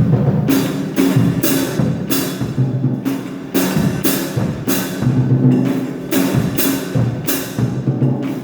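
Drum kit struck by someone who cannot play, about two hits a second, each a cymbal crash over a low tom or bass drum.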